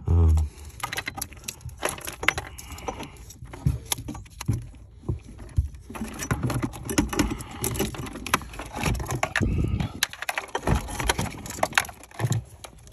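Plastic wiring-harness connectors and fuse leads rattling and clicking as they are handled and pushed into a car's fuse and relay box, in irregular small knocks.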